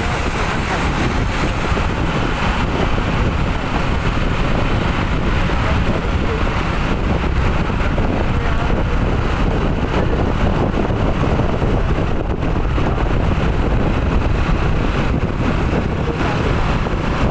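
Steady low rumble of wind on the microphone mixed with road-vehicle noise while travelling along a road.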